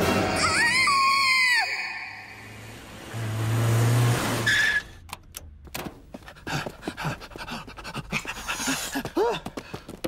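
Cartoon soundtrack of music and sound effects. A gliding tone rises and falls about a second in, and short clicks and brief arching calls fill the second half.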